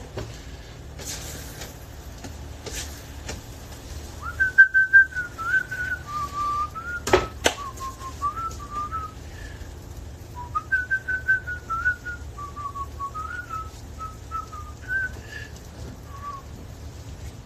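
A man whistling a tune in two melodic phrases, each several seconds long, starting about four seconds in. Two sharp clicks fall in the middle of the first phrase.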